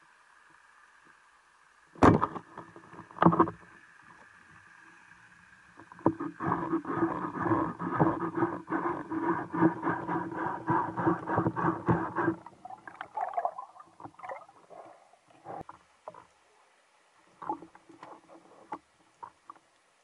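Underwater speargun shot: a sharp crack about two seconds in, then a second knock. From about six seconds a long run of rapid clicking and rattling follows as the spear shaft and line rattle with the speared barracuda on them, thinning to scattered clicks near the end.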